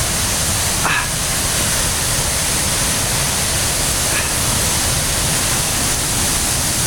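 Steady rushing of a waterfall, a constant full noise.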